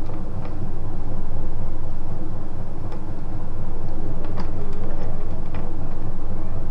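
Motorcycle engine running steadily with an even low rumble, with a few light clicks over it.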